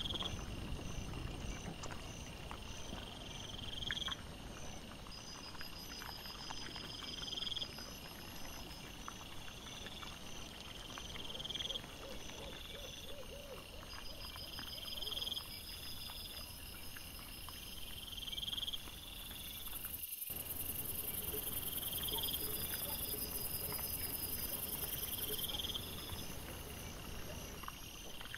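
Night insects calling in a steady rhythm: each call is a pulsed, high-pitched trill that swells in loudness and repeats about every second and a half to two seconds, with fainter higher pulsing between calls. A high hiss joins in after about twenty seconds.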